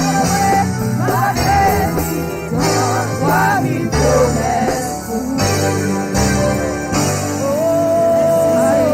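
Congregational worship song: a singer's voice over instrumental accompaniment with sustained bass notes, holding one long note near the end.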